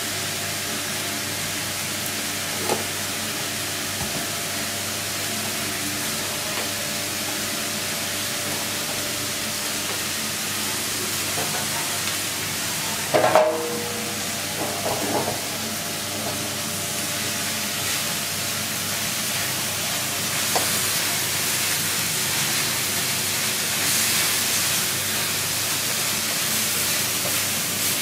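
Chopped leafy greens sizzling with a steady hiss as they fry in a wok and are stirred, with a few knocks of the stirring utensil against the pan, loudest about halfway through.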